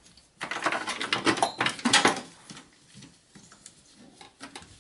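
Rubber-gloved hands handling a cable connector and plastic parts inside an open desktop PC case: a dense run of rustling and clicking for about the first two seconds, then a few light ticks.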